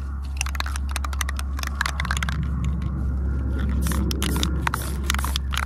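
Clicking, rattling and scraping as a spray paint can is handled over cardboard boxes, over a steady low rumble.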